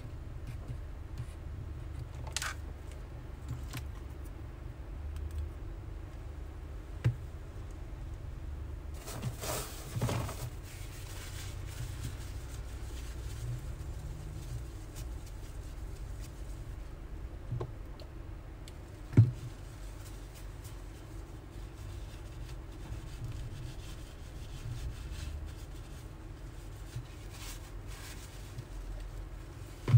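Handling sounds of a phone repair: scattered light taps, clicks and rubbing as the new back glass is pressed onto the iPhone X frame and wiped with a tissue, with one sharper knock about two-thirds of the way through, over a low steady hum.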